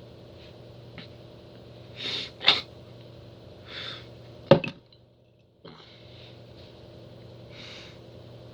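Eating noises close to the microphone: a few short breaths or sniffs and sharp clicks, the loudest click about four and a half seconds in, over a steady low hum.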